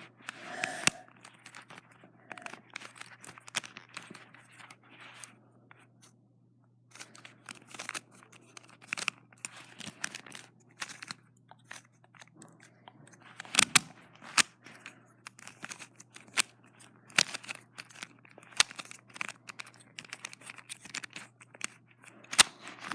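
Plastic Gear Shift twisty puzzle being turned and handled: irregular clicks, snaps and rattles of its plastic gears and pieces, with a short pause about six seconds in.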